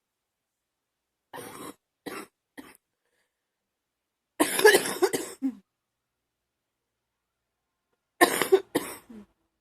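A girl coughing in three bouts: a few light, short coughs about a second in, a louder fit of coughs in the middle, and another loud bout near the end.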